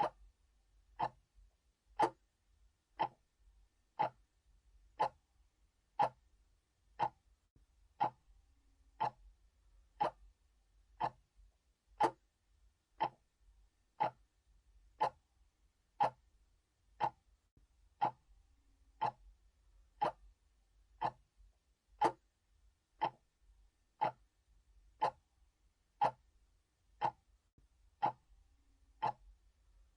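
Analog clock ticking steadily, one sharp tick per second, with every other tick a little louder in a tick-tock alternation.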